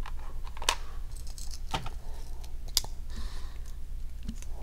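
Sharp plastic clicks and light rattling from a boxed precision screwdriver set being handled, with a few distinct clicks about a second apart.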